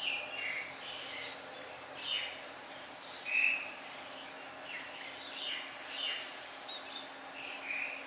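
Birds calling in short chirps, a few each second with gaps between, the loudest about three and a half seconds in, over a faint steady hum.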